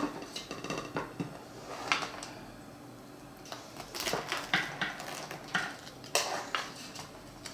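Knife cutting through baked cornbread and scraping and clinking against a metal baking pan, in scattered short strokes.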